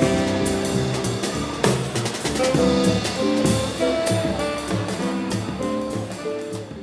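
Live jazz band playing: saxophone over upright double bass and a drum kit with cymbals, picked up raw by a single camera microphone. The music gradually fades down near the end.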